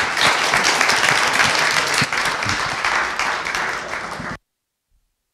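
Audience applauding, a dense even clapping that cuts off abruptly a little over four seconds in.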